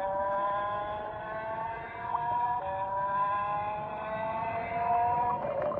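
Electronic engine sound effect from a battery-powered transforming Lightning McQueen robot toy car: several steady tones that glide slowly upward in pitch, like an engine revving, as the toy changes form.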